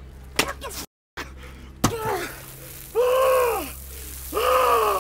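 A man groaning twice, each groan drawn out and rising then falling in pitch, as he struggles to rinse off sticky shampoo under a shower. A single sharp click just before two seconds.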